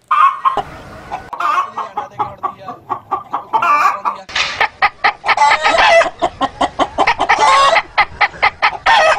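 Hen's egg-laying cackle, rapid runs of short, sharp clucks several times a second, matched by a man's close vocal imitation of it. The calls grow fuller from about four seconds in.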